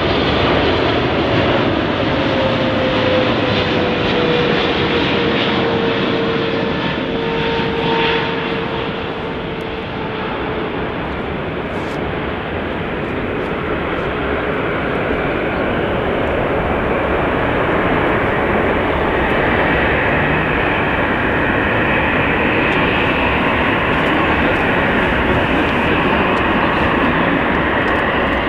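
Boeing 777 jet engines running loud and steady as the airliner passes. A thin whine falls slowly in pitch over the first ten seconds, and a higher whine comes in during the second half.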